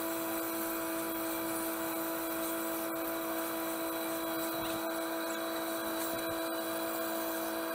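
A boat's engines running steadily at cruising speed: a constant drone with several steady tones over a wash of rushing water noise.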